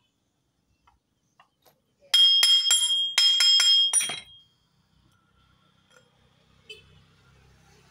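Metal struck in two quick runs of bright, ringing clinks, about eight strikes in all over two seconds. A faint low hum follows.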